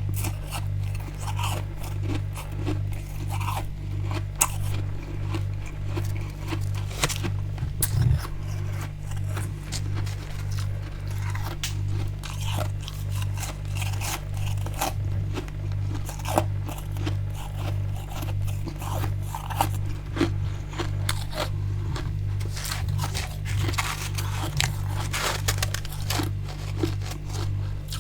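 Built-up freezer frost and ice being scraped, bitten and chewed, in many scattered sharp crunches, over a steady low throbbing hum.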